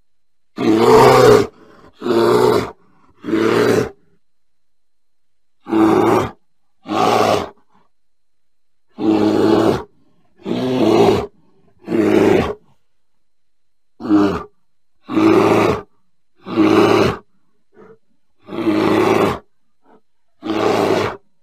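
A bear giving a series of short, loud vocal calls, about a dozen, each under a second long, coming in groups of two or three with brief pauses between.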